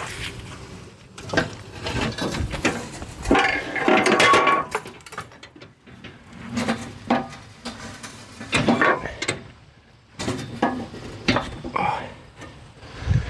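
Steel Mud Mixer concrete mixer being tipped from its side up onto its wheels: a series of irregular metal clanks, knocks and rattles from its frame and hopper.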